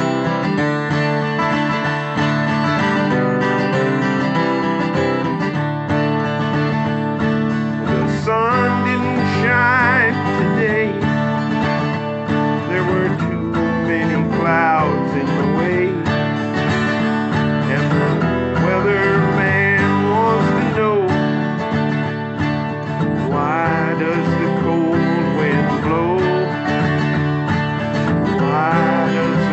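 Country-style music with acoustic guitar; a lead melody line bends and wavers in pitch over it.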